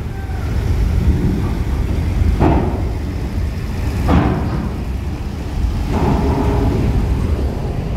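Mercedes-Benz OH1626 coach's diesel engine running with a low, steady rumble as the coach drives slowly up a ferry's loading ramp. Two short, louder rushes of noise come about two and a half and four seconds in.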